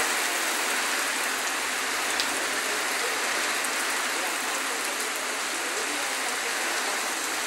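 Heavy rain pouring down in a steady hiss, drumming on the flooded street and surroundings.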